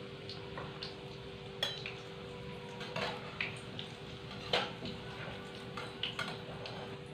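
Metal cooking utensils clinking and knocking against a pan or plate while fried bread rolls are handled, with about half a dozen separate clinks. A steady low hum runs underneath.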